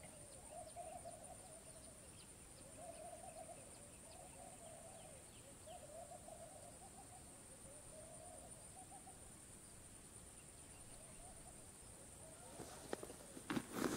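Faint hooting calls, five of them, each about a second long, spread over the first nine seconds. A steady high hiss runs under them.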